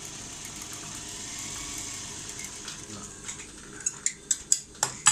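Sewing machine running steadily as it sews a second line of stitching along a seam. In the last second or so come about six sharp clicks in quick succession.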